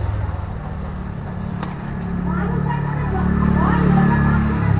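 Low motor rumble that swells louder in the second half, with people talking in the background.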